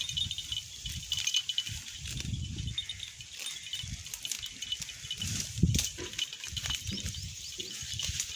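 Sheep grazing: grass being torn off and chewed, heard as irregular crisp crunching and rustling with soft low thuds.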